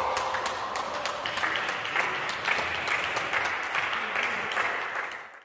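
Applause, a dense run of hand claps, fading out near the end.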